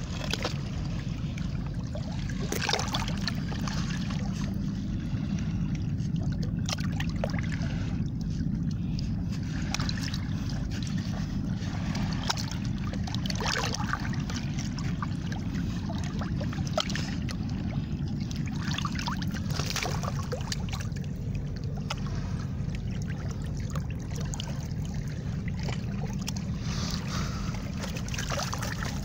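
Sea water washing and trickling among harbour rocks, with a splash every few seconds over a steady low rumble.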